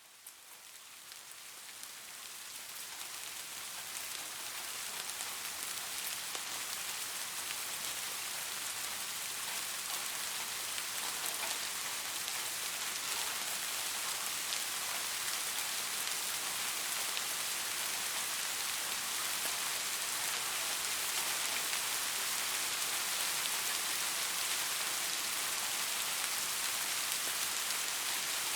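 Steady rain falling, a dense patter of drops with a bright hiss, fading in over the first few seconds and then holding steady.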